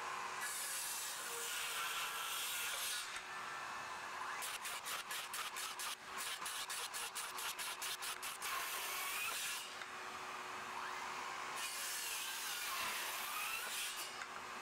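Flex 6.5-inch brushless inline circular saw cutting across 2x12 lumber in repeated passes. A steady vacuum hum from the dust extractor runs underneath. In the middle there is a stretch of rapid, even pulses, about four a second.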